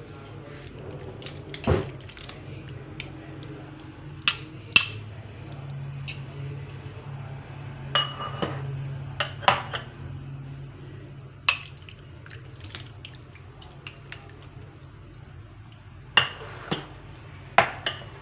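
A steel spoon clinking against ceramic bowls while jelly cubes are scooped out and dropped onto custard: a dozen or so scattered sharp clinks, with a faint steady low hum underneath.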